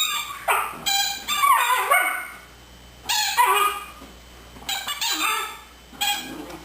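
A German Shepherd puppy playing with a squeaky toy: about six short, high-pitched squeaks and yips in quick bursts, several falling in pitch.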